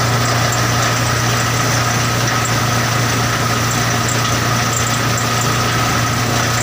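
Tractor engine running steadily under load, driving a thresher through its spinning PTO shaft and belts: a loud, even low drone with a thin steady whine above it from the machine.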